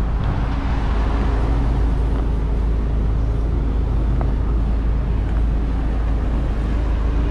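Steady low rumble of road traffic with a constant engine hum underneath, unchanging throughout.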